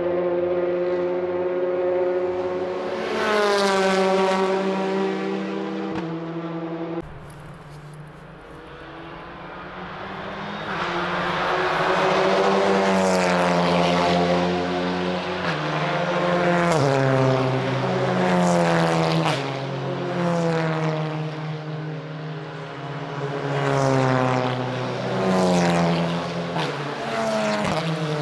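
TCR touring cars' 2.0-litre turbocharged four-cylinder engines at full throttle passing one after another. The revs climb and drop in steps at each gear change, and each note falls away as a car goes by. The sound drops suddenly about seven seconds in, then builds again as more cars come through.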